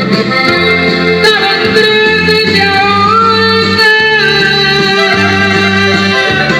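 Accordion-led instrumental break of a Spanish-language ballad, with sustained melody notes over a moving bass line.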